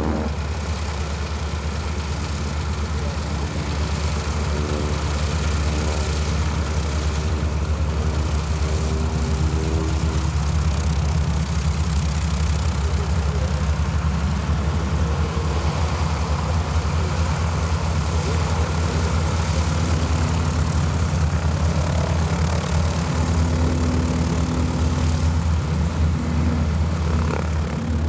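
Several North American SNJ/T-6 Texans' Pratt & Whitney R-1340 radial engines running on the airfield: a steady, loud propeller-engine drone.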